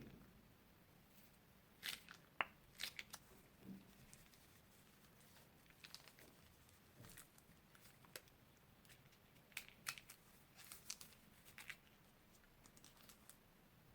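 Crunchy slime being squeezed and pressed, giving off faint scattered crackles and small pops in short clusters.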